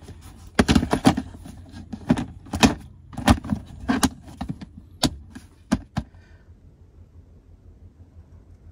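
Clear plastic storage box with clip latches being handled and its lid pressed shut: a quick series of sharp plastic clacks and rattles that stops about six seconds in.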